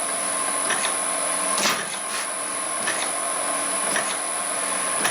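Home-built crusher machine driven by an electric motor, running with a steady motor whine and hum, and short knocks or clatters from the crusher mechanism every half second to a second, the loudest about a third of the way in.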